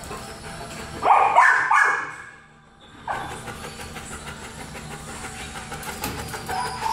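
A dog barks two or three times in quick succession about a second in, then goes quiet. Lower-level background noise with faint clicks follows.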